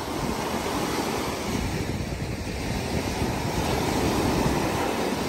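Sea surf washing and breaking on the beach, with wind buffeting the microphone; the wash swells to its loudest about four seconds in as a wave breaks close to shore.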